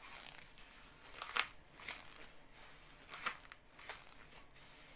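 A few faint, short rustling noises at irregular intervals as a pedal resistance trainer's elastic tubes and foam handles are pulled back and forth.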